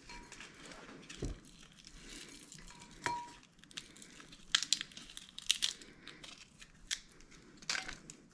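Dried chili pods, ancho among them, crackling and tearing as they are pulled apart by hand and their seeds cleared out, in irregular short crackles and rustles.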